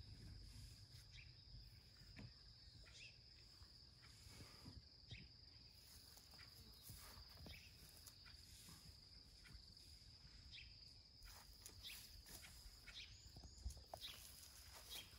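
Near silence: a steady high-pitched insect trill, with faint scattered rustles and soft steps from the elephant calf walking on grass.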